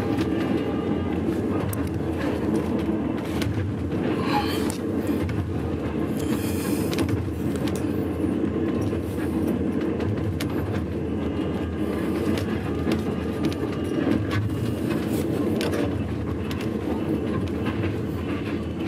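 Passenger train running, heard from inside the carriage: a steady low rumble with occasional clicks.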